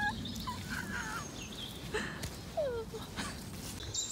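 A woman's short wordless squeals and whimpers of dismay: a few brief rising and falling vocal glides, with faint rustle and clicks in the background.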